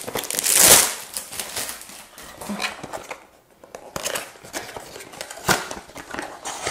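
Perfume packaging being unwrapped and opened by hand: irregular crinkling and rustling, loudest in a rush about half a second in, with small clicks and a sharp knock near the end.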